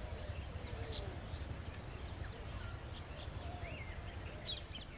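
Rural outdoor ambience: a steady high-pitched insect drone, with scattered short bird chirps and a low rumble underneath.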